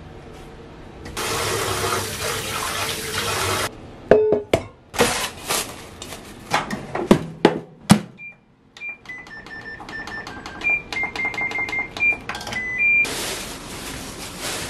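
Kitchen handling: a burst of rushing noise, then a run of sharp clatters and clicks, then a string of short electronic beeps at several different pitches from a Hitachi microwave oven's control panel as it is set, then more rushing noise near the end.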